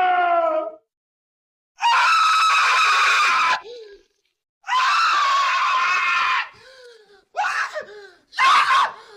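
Cartoon scream sound effects played one after another with short gaps: the falling tail of one scream, then two long high screams of nearly two seconds each, then a few short screams near the end.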